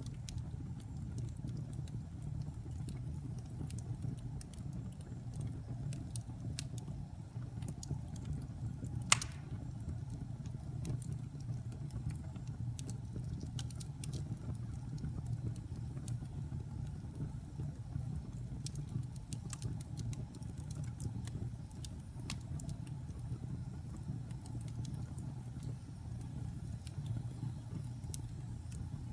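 Fire burning in a fireplace: a steady low rumble with scattered crackles and one louder pop about nine seconds in.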